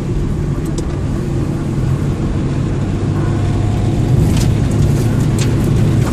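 Car interior noise while driving on a rough, patched road: the engine and tyres make a steady low drone, with a few short clicks and knocks in the second half.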